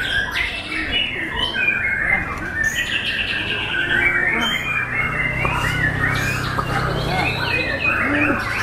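White-rumped shamas (murai batu) singing at once, a dense overlapping tangle of quick whistles, rising and falling glides and trills. A low steady hum sits under the song from about halfway through.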